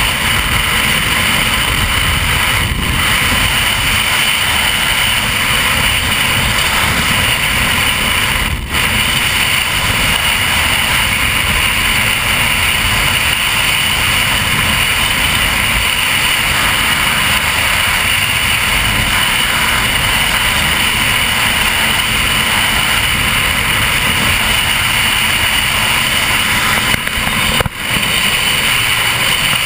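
Offshore performance powerboat running flat out through rough, choppy water: a steady loud engine drone mixed with wind rushing over the deck-mounted microphone. The sound drops out briefly twice, about 9 seconds in and near the end.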